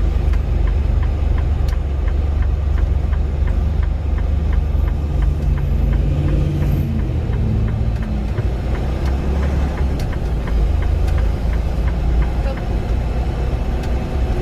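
Semi-truck running, heard from inside the cab: a steady low engine and road rumble, with faint quick ticking over it.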